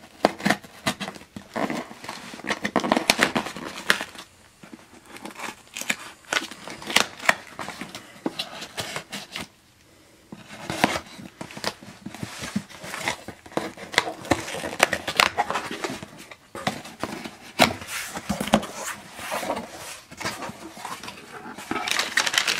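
A hooked box cutter scratching and slicing through the packing tape along a cardboard box's seam. Later the cardboard flaps are pulled open and kraft packing paper rustles and crinkles, with a short pause about halfway through.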